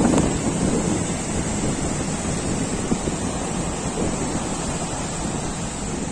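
Strong sea wind buffeting the microphone over the steady rush of surf breaking on the beach.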